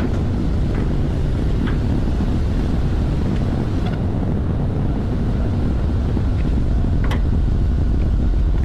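Steady, loud low rumble of running machinery, with a couple of light sharp clicks, about seven seconds in the clearest.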